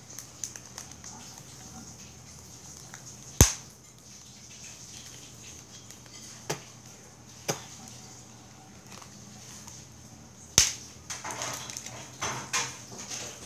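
Handling noises from a roll of clear tape being picked at to find its end: a few sharp clicks, the loudest about three and a half seconds in and again just past ten seconds, then rustling near the end.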